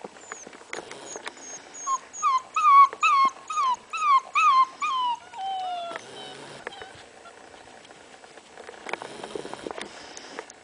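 Leonberger puppy whining and yipping: a quick run of about ten short, high-pitched rise-and-fall yips, about three a second, ending in one longer falling whine.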